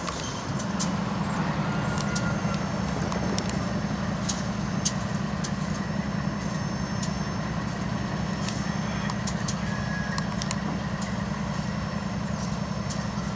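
GE C41-8W (Dash 8-41CW) diesel-electric locomotive's 16-cylinder engine running under load as the train departs, a steady low drone that grows louder about half a second in. Scattered sharp clicks are heard along with it.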